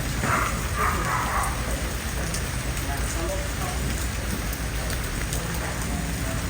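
Steady rain falling, with two brief higher sounds in the first second and a half.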